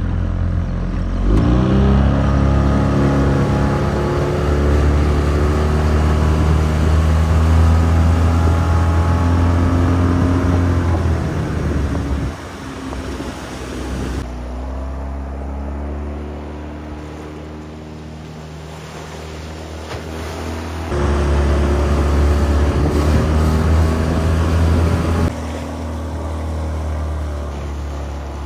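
Small outboard motor on a mini boat running under way: it speeds up about a second in, holds a steady pitch, eases off and falls in pitch around the middle, then picks up again and runs loud.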